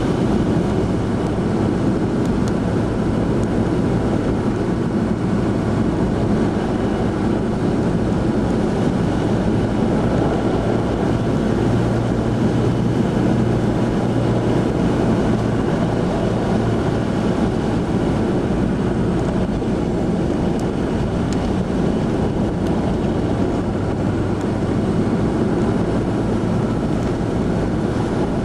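Steady engine drone and tyre noise heard inside a vehicle's cab as it drives along a snow-covered road, with a constant low hum.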